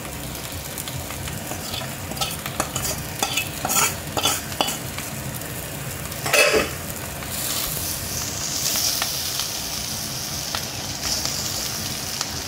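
Metal spatula scraping and stirring fried rice in a metal wok while it sizzles. Several scrapes and clatters come in the first half, the loudest about six seconds in, then a steady sizzling hiss.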